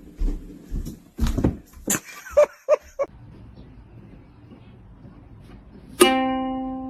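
Knocks and a few short squeaks, then a plucked string note rings out about a second before the end and slowly fades.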